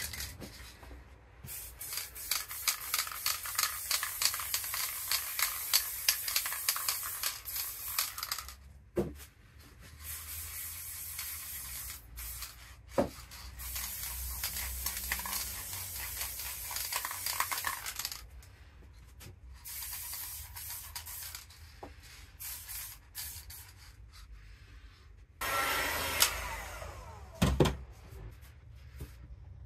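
Aerosol spray-paint can hissing as black paint is sprayed, first in a quick run of short puffs, then in longer steady sprays. A few sharp knocks, and a rustle near the end.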